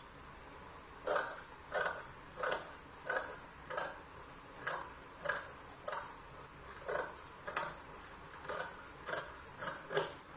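Large tailor's shears cutting through doubled black cloth. The blades close in a steady run of snips, about one every two-thirds of a second.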